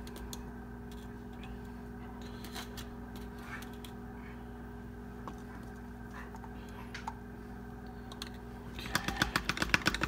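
Powder scoop tipped into a plastic funnel on a plastic water bottle, with faint scrapes and clicks over a steady low hum. About nine seconds in, a rapid run of loud taps as the funnel is jiggled on the bottle neck to shake the powder through.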